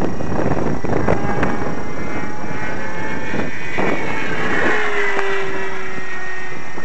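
Wind buffeting the microphone, with the thin whine of a GWS Corsair RC foam plane's electric motor and propeller flying overhead. Its pitch slides slowly lower in the second half.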